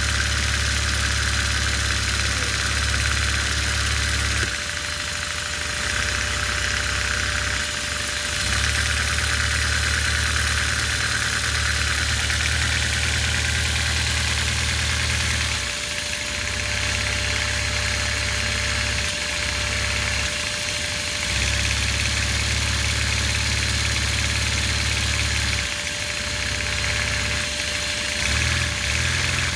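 Lego two-cylinder vacuum-powered piston engine running under load through its three-speed dog-clutch transmission, over a steady hiss and a steady tone. Its low running note drops out briefly several times as it goes through the gears; it bogs down in second and third.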